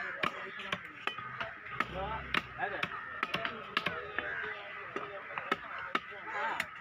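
A large fish-cutting knife chopping a trevally fillet into chunks on a wooden block: sharp blade strikes against the wood, two or three a second at an uneven pace. Voices chatter in the background.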